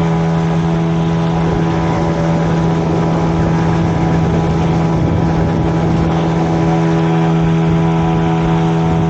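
Boat engine running steadily at a constant speed, a loud, even hum with no change in pitch.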